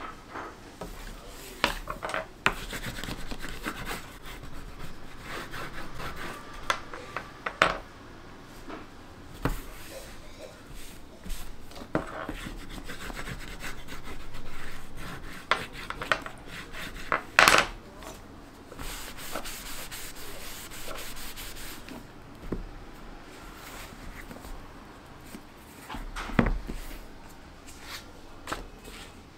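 Bone folder rubbing over the paper of a book's endpaper, mixed with paper handling and sharp knocks of the book and tools against a wooden table, the loudest a little past halfway.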